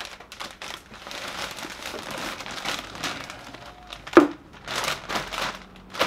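Clear plastic mushroom grow bag crinkling as the filled bag of oak sawdust substrate is handled and its top folded over, with a sharp knock about four seconds in.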